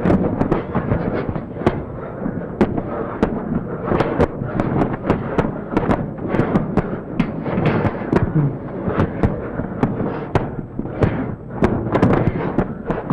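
Experimental film soundtrack: a dense, continuous crackling clatter with sharp clicks and pops several times a second, swelling and fading in loudness.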